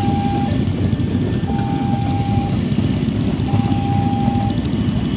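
Electronic railway level-crossing alarm beeping, one tone about a second long every two seconds, over the low rumble of a passing KRL electric commuter train and waiting motorbikes.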